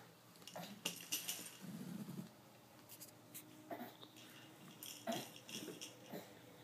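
Faint, scattered jingling rattles from a soft fabric toy cube as a baby grabs and pushes it, in short separate shakes.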